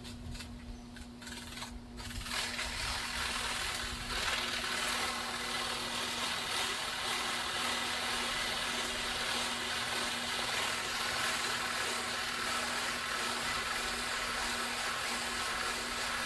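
The rusty motor shaft of a window box fan being sanded while the fan motor runs and spins it. A steady rasping hiss starts about two seconds in and holds over the motor's steady hum.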